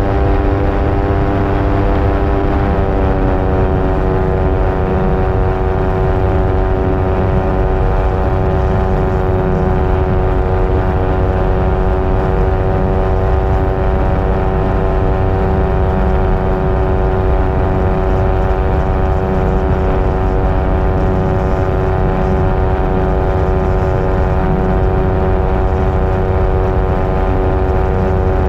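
Aerolite 103 ultralight's two-stroke engine and pusher propeller running steadily, over a heavy low rumble. The pitch eases down slightly a few seconds in, then holds steady.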